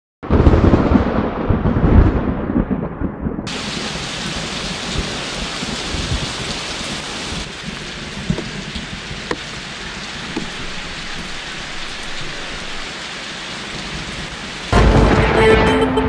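Thunder rumbling, loudest twice in the first two seconds, then steady rain hissing. About a second before the end, music with sustained tones comes in loudly.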